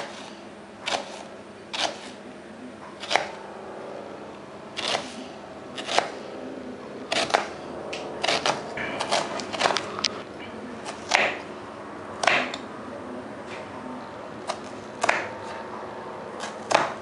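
Kitchen knife slicing a red onion thinly on a plastic chopping board: sharp taps of the blade striking the board, about one a second, coming faster in the middle.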